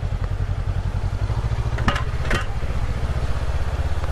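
Honda CB500X's 471 cc parallel-twin engine running at low revs with an even low pulsing. About two seconds in come two sharp clacks about half a second apart: the front and then the rear tyre rolling over the metal joint onto a wooden bridge.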